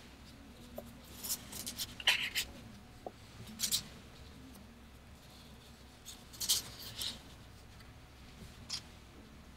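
Pen scratching across paper in short, irregular strokes while writing large cursive letters.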